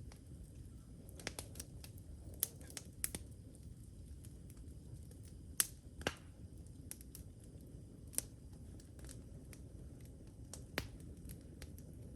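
Wood campfire crackling: scattered sharp pops at irregular intervals over a low steady rumble.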